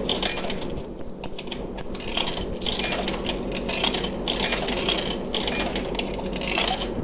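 Yen coins clinking one after another as they are fed into a vending machine's coin slot.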